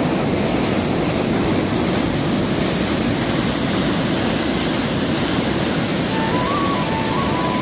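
Canal water rushing and churning as it pours through a concrete outfall, a steady loud rush. Near the end a thin melody line of background music comes in, stepping upward in pitch.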